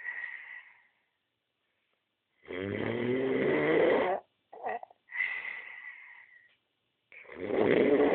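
A sleeper snoring: long, loud snores about two and a half seconds in and again near the end, each lasting well over a second. Softer wheezing breaths with a thin whistle fall between them.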